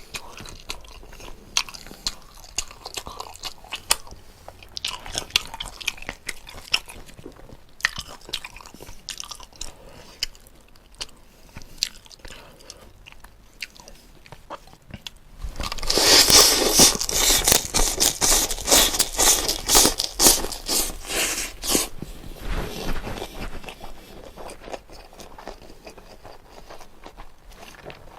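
A person eating close to the microphone: chewing and small bites, then about halfway through a louder stretch of rapid crunching lasting about six seconds.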